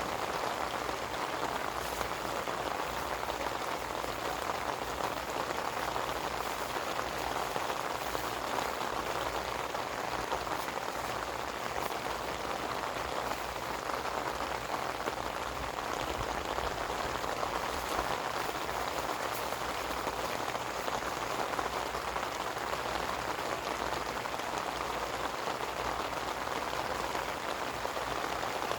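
Steady rain falling without a break, a dense even hiss of drops with fine scattered ticks.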